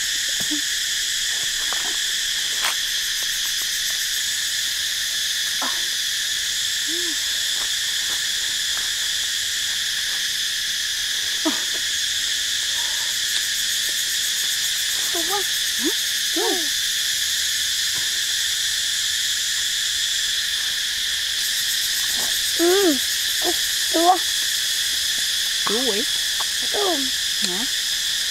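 Steady, high insect chorus, cicadas or crickets droning without a break. Short, low chirping calls from some animal come over it now and then, more often near the end.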